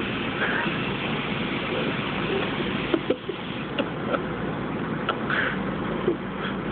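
Bus engine idling with a steady low hum, with a few light clicks in the middle and near the end.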